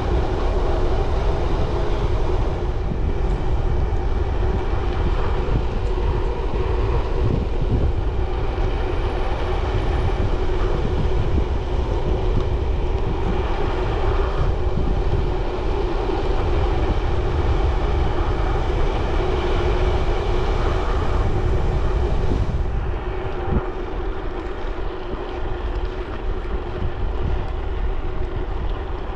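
Wind buffeting the microphone of a moving bicycle, over a steady hum from the tyres rolling on the road. The wind rumble eases a little about three-quarters of the way through.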